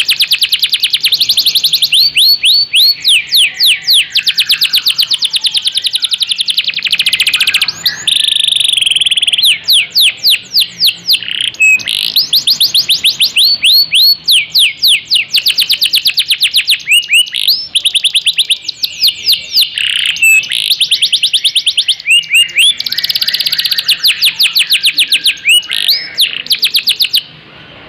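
Domestic canary singing a long, nearly unbroken song: loud, fast trills of repeated down-slurred notes, one trill type giving way to the next every second or two. The song drops away briefly near the end.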